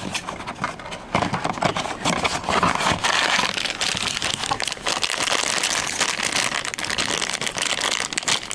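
Black foil blind bag crinkling and crackling as it is pulled out of a cardboard blind box and worked open by hand; a dense crackle from about a second in.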